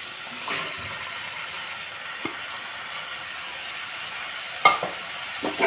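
Potatoes and chopped spring onion stalks sizzling softly in oil in a steel kadai, with a few sharp clinks against the pan, loudest near the end.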